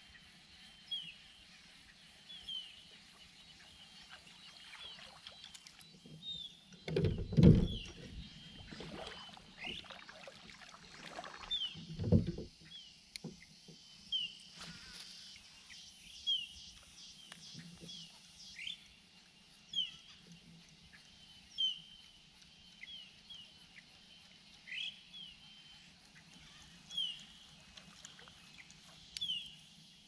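A bird calls with short, sharp chirps every second or two. A cluster of loud, low thumps comes about a quarter of the way in, and another follows shortly after. These are handling knocks on the fishing kayak.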